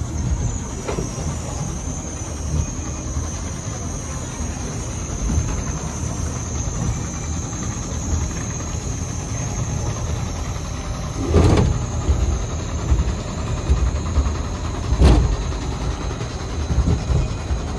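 Family roller coaster train rolling along its track with a steady low rumble and a steady high whine, and two loud clunks about eleven and fifteen seconds in as it nears the lift hill.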